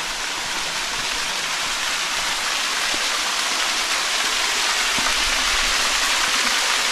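Small waterfall splashing down a rock face into a shallow pool: a steady rushing hiss that grows gradually louder as it is approached.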